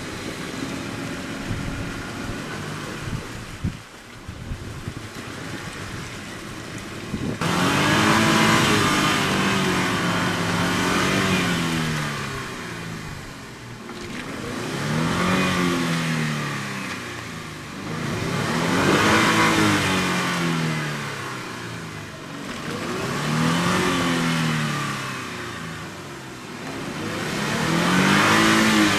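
A vehicle engine revving up and easing off over and over, a swell about every four seconds. It begins abruptly after a few seconds of a steadier, quieter engine sound.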